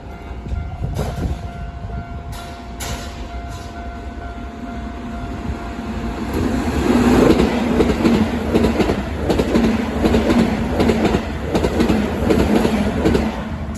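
Hokuso 7800 series electric train passing a level crossing: the crossing alarm sounds a steady tone, then from about halfway through the train goes by loudly with rhythmic wheel clatter. It fades near the end.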